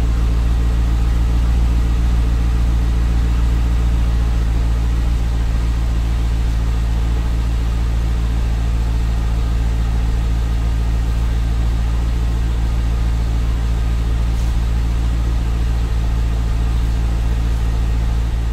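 Stock exhaust of a 2005 Cadillac CTS-V's LS6 small-block V8 idling steadily after a cold start.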